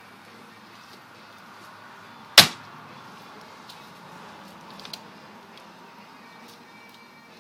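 One sharp, loud crack a little over two seconds in, with a brief ringing tail, over a faint steady background; a couple of faint clicks follow.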